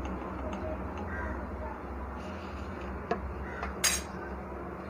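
Steel spoon clinking against a nonstick kadai of milk a few times, with a sharp clink about three seconds in and a louder one just after, over a steady low hum.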